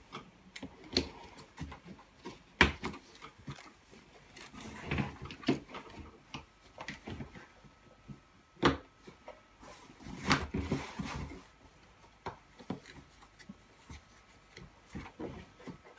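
Handling noise as a fabric canopy is pulled over and pressed onto a Bugaboo Fox carrycot: fabric rustling with scattered plastic clicks and knocks, the sharpest about two and a half seconds in and again about nine seconds in.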